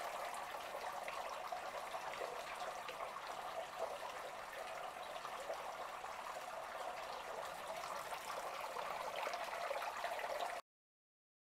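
Water running steadily into a concrete catfish fry tank with a continuous trickling splash: the tank's round-the-clock flow-through water supply. The sound cuts off suddenly near the end.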